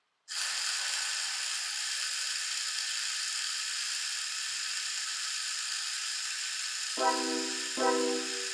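Steady hiss with faint even tones running through it, starting suddenly just after the start; background music with sustained chords comes in about seven seconds in.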